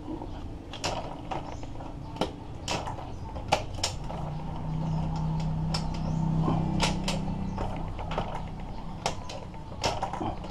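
Irregular metallic clicks and taps of hand tools and engine parts as a Suzuki GD110 motorcycle engine is being reassembled, with a low steady hum for a few seconds in the middle.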